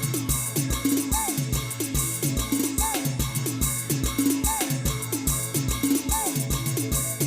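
Adivasi band playing timli dance music, instrumental: a steady, even drum beat under a short melodic phrase that repeats about every one and a half seconds.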